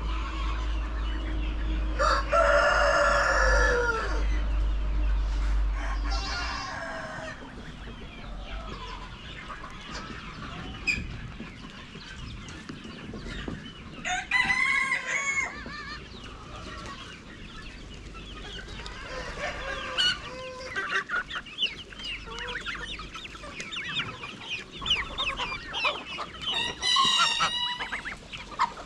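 Free-range chickens clucking, with a rooster crowing loudly about two seconds in and more calls later on.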